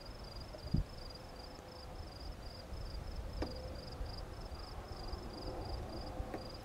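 An insect chirping steadily in a high-pitched rhythm, about three chirps a second, over a low rumbling background noise, with a single thump about a second in.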